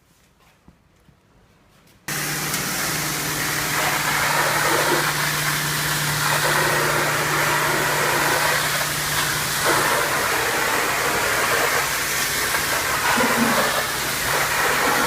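A floor-cleaning machine's motor running steadily, a constant hum under a loud hiss. It cuts in suddenly about two seconds in.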